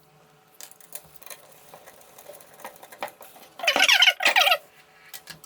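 Faint metallic clicks and ticks as bolts are threaded loosely by hand into a mountain-bike fork crown. About four seconds in come two short, loud squeaks that fall in pitch.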